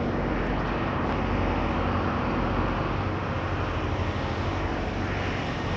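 Automatic car wash machinery running: a steady rush of noise over a low hum.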